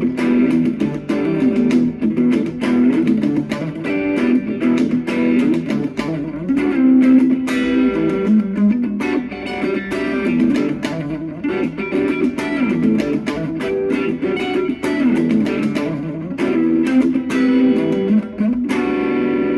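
Guitar music: a quick run of picked notes over a held chord that rings out again near the end.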